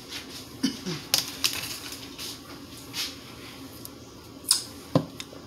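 Sipping a thick fruit smoothie through a straw from a plastic cup: a few short sucking slurps and small clicks, spread out with quiet in between.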